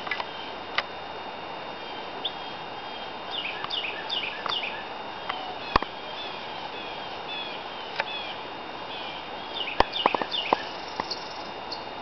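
Small songbirds chirping at a feeder: quick runs of short, high, falling notes in two bouts, with a few sharp clicks, the loudest near the middle and again near the end.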